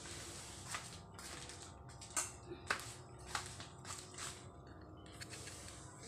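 A handful of short, light clicks and scrapes, spread through the first few seconds, as hands handle pastry dough and a small fluted metal tart tin in an aluminium bowl. A faint steady hum runs underneath.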